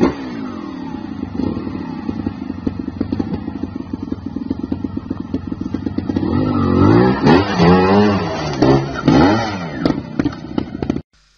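Trials motorcycle engine running at a steady idle, then revved hard several times in quick rising and falling bursts from about six seconds in as the bike is hopped up a rock step. The sound cuts off suddenly near the end.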